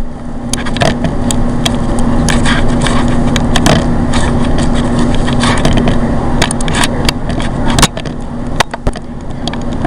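Microwave oven running with a steady hum while a carrot inside crackles and pops irregularly as it burns and smokes.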